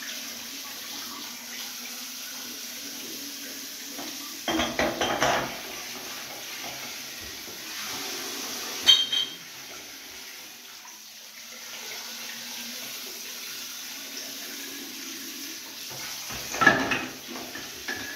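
Handheld bath shower head spraying a steady hiss of water into a plastic bucket of glass beer bottles, with the bottles clinking against each other: a short cluster of knocks about four to five seconds in, one sharp ringing clink about nine seconds in, and another cluster near the end.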